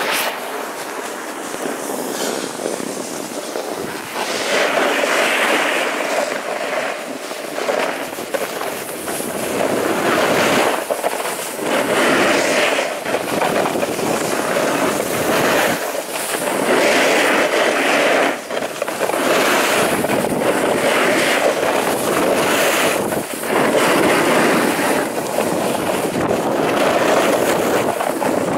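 Edges scraping and hissing over groomed snow during a downhill run, swelling and fading every couple of seconds, with wind buffeting the microphone.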